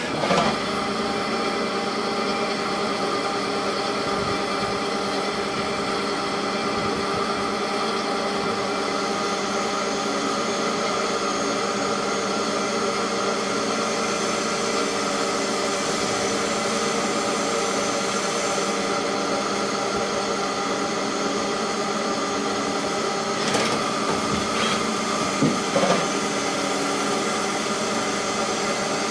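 Center-drive CNC lathe running steadily while turning a shaft: a constant machine hum made of many steady tones over a noisy hiss. A few sharp knocks come about three-quarters of the way through.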